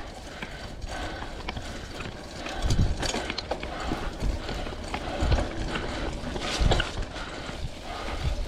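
Vintage Klein Attitude Comp mountain bike climbing dirt single track: tyres rolling over leaf-covered, muddy ground with clicks and rattles from the bike and a dull thump every second or so.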